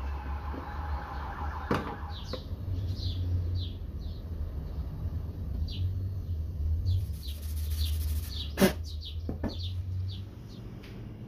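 Small birds chirping repeatedly over a steady low hum, with a few sharp knocks of tools against the wooden tray; the loudest knock comes about eight and a half seconds in.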